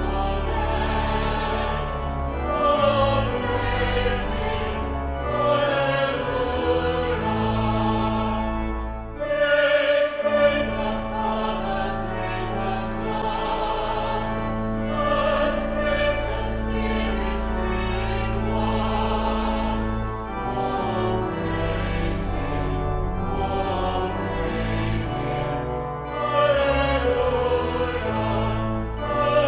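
Choir singing with instrumental accompaniment: voices held with a wavering vibrato over long sustained bass notes, in continuous music.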